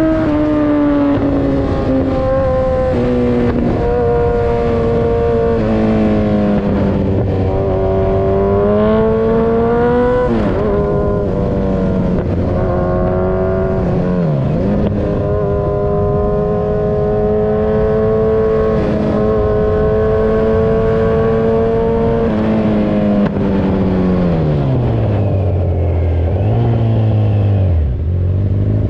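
Kawasaki Z1000 Sugomi's inline-four engine running through an Avionic V4 aftermarket exhaust. It holds steady revs for long stretches, drops briefly about halfway, falls off toward the end, then picks up again.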